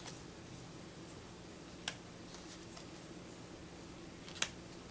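Thin paper game cards being flipped off a stack and laid down on a wooden table: two sharp card snaps about two and a half seconds apart, with fainter ticks of card handling between them. A steady low hum runs underneath.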